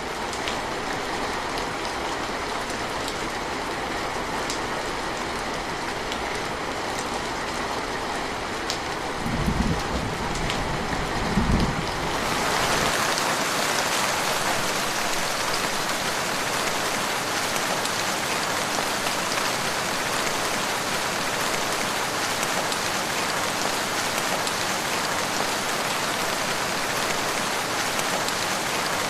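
Steady rain with separate drips, then about twelve seconds in it turns abruptly to a heavier, denser hiss of rain that holds steady. Two brief low rumbles come just before the change.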